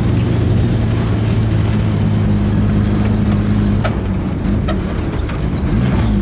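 WWII military vehicle's engine running steadily as it drives, with a few sharp metallic clanks and rattles from the body about two-thirds of the way through. The engine note dips briefly near the end.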